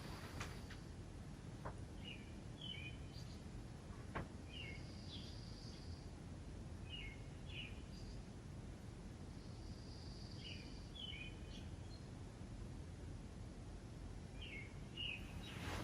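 A small bird calling: a short phrase of two or three quick high chirps, repeated about every two and a half seconds over steady low background noise, with a faint click or two.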